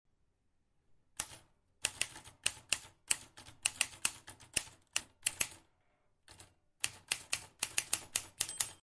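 Typewriter sound effect: a quick, uneven clatter of key strikes starting about a second in, with a short pause near the middle, keeping time with on-screen text being typed out letter by letter.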